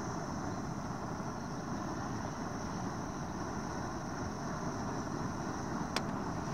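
Portable gas camping stove burner running at a high flame, a steady, even rushing noise. A single light click about six seconds in.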